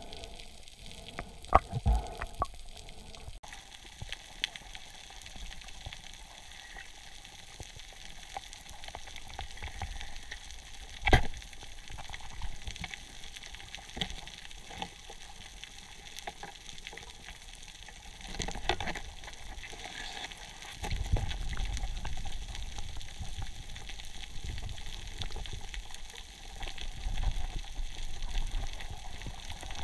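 Underwater reef sound: a dense, steady crackle of tiny clicks. A few sharper knocks stand out, the loudest about eleven seconds in, and a low rush of moving water comes in about two-thirds of the way through.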